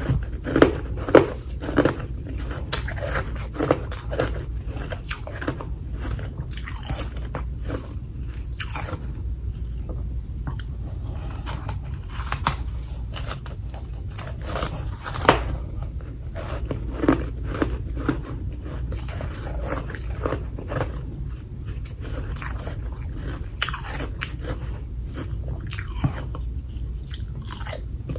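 A person biting and chewing chunks of humidifier freezer frost, close to the microphone: irregular crisp crunches, coming thick and fast at first, then spaced out with chewing in between.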